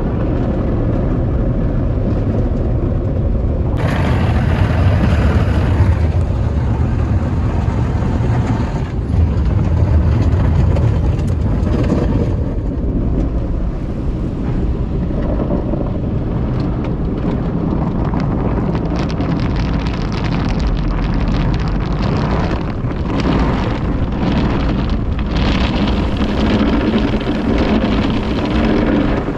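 Tunnel car wash equipment working on a car: a steady, loud rush of water spray and machinery with a deep rumble. A brighter hiss comes in about four seconds in, and in the second half there is a rapid patter of strikes against the car.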